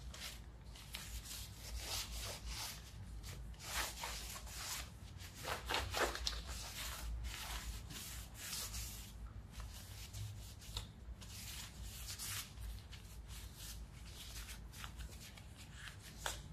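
Irregular rubbing and scraping of hands handling and working on parts, in uneven strokes with no steady rhythm.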